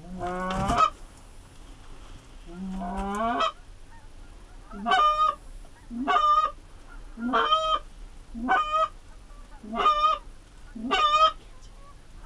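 Goose honks: two longer, rising honks in the first few seconds, then six short honks evenly spaced a little over a second apart.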